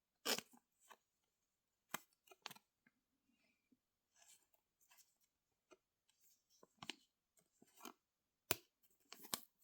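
Faint, scattered clicks and small rustles of trading cards and their packaging being handled.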